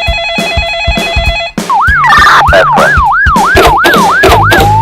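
An electronic trilling ring for about the first second and a half, then a siren sound effect wailing up and down quickly, about two and a half sweeps a second, which turns into a slow rising wail near the end. Background music with a steady beat runs underneath.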